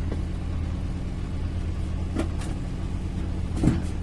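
A few short plastic clicks and knocks, the loudest near the end, as a mains power cord is handled and pushed into the computer power supply's socket, over a steady low hum.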